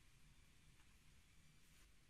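Near silence: room tone, with a faint brief rustle of handling near the end.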